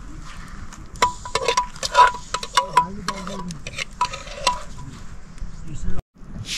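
Irregular metallic clinks, many leaving a short ringing tone, coming in a busy cluster through the middle of the clip and stopping abruptly near the end.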